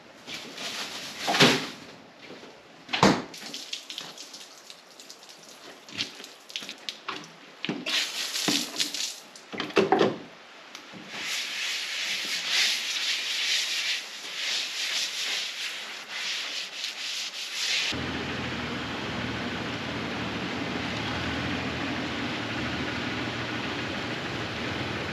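Knocks and clatter of things being handled, then a garden hose spraying water in uneven bursts for several seconds, giving way to a steady, even hiss.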